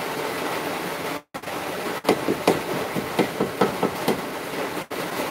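A quick, irregular run of about ten sharp knocks over roughly two seconds, like hammering, over a steady hiss; the sound cuts out completely twice for a moment.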